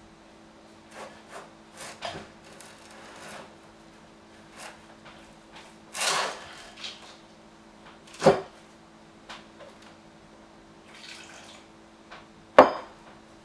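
Wooden spoon stirring and scraping stiff oatmeal cookie dough in a ceramic mixing bowl, with scattered scrapes and knocks against the bowl. A sharp knock, the loudest sound, comes near the end as the glass measuring cup is handled.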